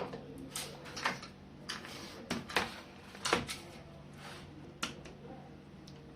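Irregular light clicks and knocks of small laptop parts being handled and set down on a bench, most of them in the first three and a half seconds, over a low steady hum.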